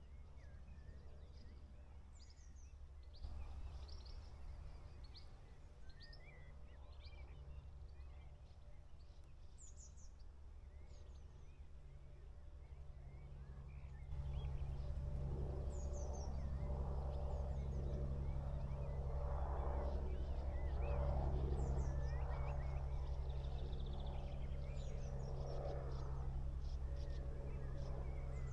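Small birds chirping, short high calls scattered throughout, over a steady low hum that grows louder about halfway through.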